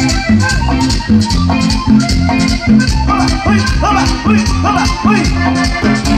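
A live cumbia band playing through loudspeakers: a steady dance beat with a strong bass line, shaker percussion and melody, with some sliding notes around the middle.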